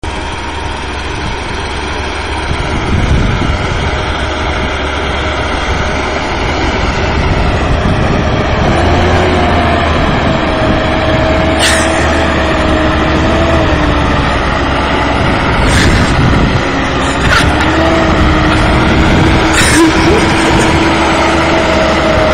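Deutz-Fahr Agrotron tractor engine working hard, hauling a heavily loaded forage wagon up a silage clamp. About nine seconds in a steady whine rises over the engine noise, and a few sharp knocks sound in the second half.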